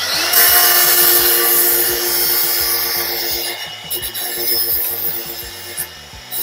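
AEG angle grinder's abrasive disc grinding the steel bar of a bar clamp down thinner: a steady motor whine over a harsh grinding hiss. The whine rises as the grinder spins up at the very start.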